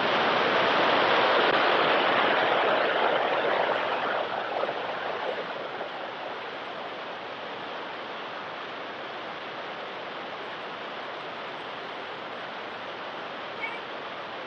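Water rushing over a weir, loud at first and settling into a quieter, steady rush after about five seconds.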